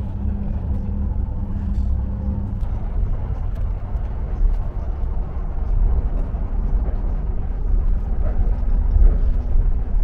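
Elizabeth line Class 345 train running, heard from inside the carriage as a steady low rumble with light clicks. A faint hum in it stops about two and a half seconds in.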